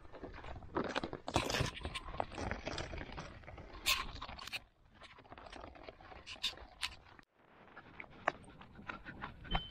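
Footsteps crunching and scraping on dry, stony shore ground, irregular and uneven, with a couple of brief pauses.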